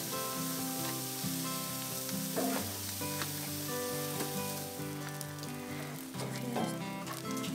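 Butter-coated bread slices sizzling on a hot braai grid over coals, an even frying hiss. Light clicks near the end, and background music.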